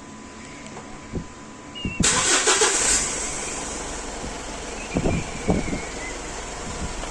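Mitsubishi Triton pickup engine started from a retrofitted push-button start. After a few faint clicks, about two seconds in, the starter cranks briefly and the engine catches, then settles into a steady idle. A couple of knocks come a few seconds later.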